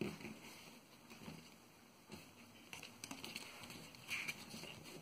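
Faint rustling and soft taps of origami paper being folded and pressed flat by hand.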